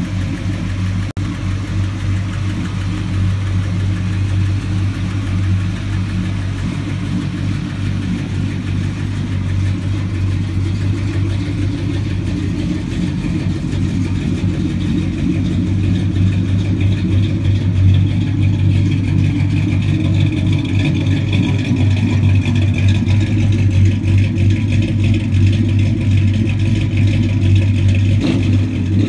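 A 1972 Chevrolet Chevelle's engine idling steadily with a deep, even exhaust note, growing a little louder in the second half.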